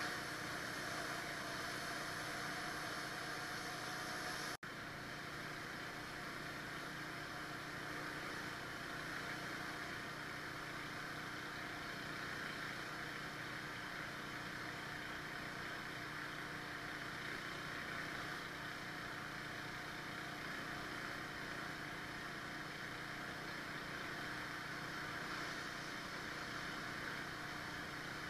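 Pressure washer running steadily, a constant engine-like hum with hiss over it, dropping out for an instant about four and a half seconds in.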